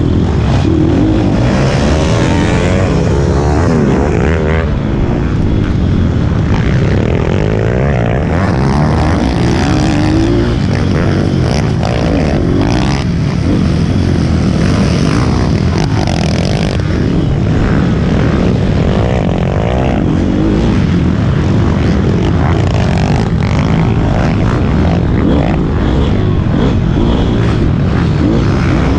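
A racing pit bike's small engine heard from on board, revving up and down continuously as the rider accelerates, brakes and shifts through the corners of a dirt track.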